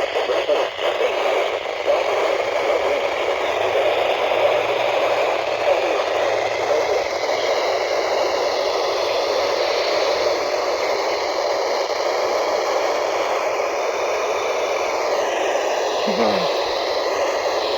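NOAA Weather Radio receiver giving a steady hiss of static, the station's signal lost or too weak to hear.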